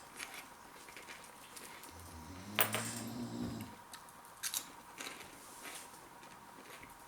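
Crunchy baked potato puffs being chewed: scattered short crunches and clicks, the loudest about two and a half seconds in.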